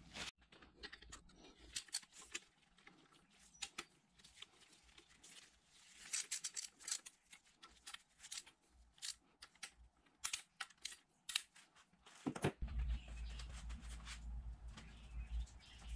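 Hand ratchet clicking in quick runs as the oil pump bolts are run down into an engine block, with small metal clicks from tool and parts handling. About twelve seconds in, the sound changes to a steady low rumble with lighter handling noises.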